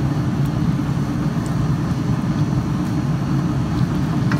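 A steady low mechanical hum runs throughout, with a few faint clicks as a wooden spoon stirs thick beans in an enamelled cast-iron pot.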